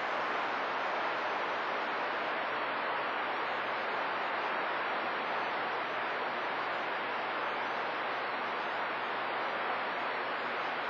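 CB radio receiver's steady static hiss on channel 28 (27.285 MHz): open-channel noise with no station coming through, the signal meter at rest.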